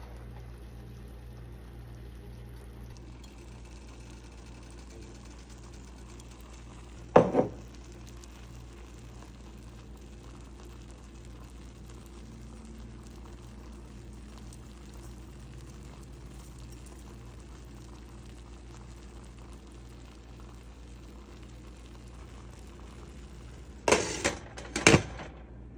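Pot of pompano simmering in white wine vinegar, a steady low bubbling with a hum beneath it. A single sharp clatter sounds about seven seconds in, and two more knocks come close together near the end.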